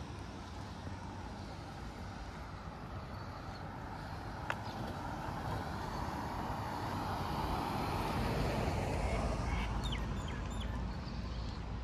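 Street traffic noise with a car passing, swelling in the middle and easing off, and a few short bird chirps near the end. A single sharp tick comes a little after four seconds.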